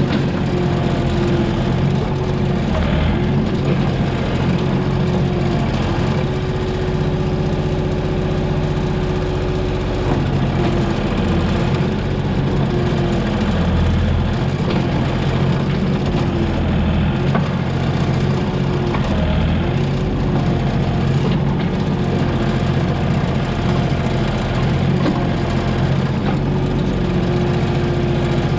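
Komatsu PC28 mini excavator's diesel engine running steadily under work, its pitch dipping briefly every few seconds as the hydraulics take load.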